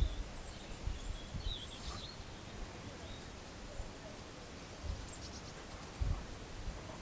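Quiet outdoor background with faint bird chirps and a few low thumps, the loudest about six seconds in.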